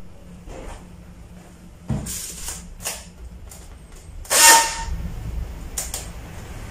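Handling noise as a flat LED monitor panel is lifted from its polystyrene foam packing tray: scattered knocks and rubbing scrapes, with a thump about two seconds in and the loudest scrape, with a slight squeak, about four and a half seconds in.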